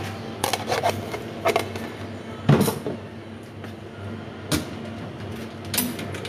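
About six short knocks and clicks at irregular intervals, the loudest about two and a half seconds in, over a steady low hum.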